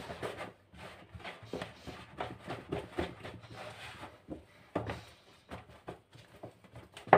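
Hands kneading soft yeast dough in a plastic bowl: irregular squishing and soft thumps, several a second, with one sharper thump near the end.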